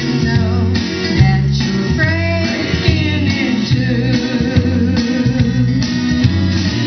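A woman singing into a microphone, amplified through PA speakers, over instrumental backing with guitar.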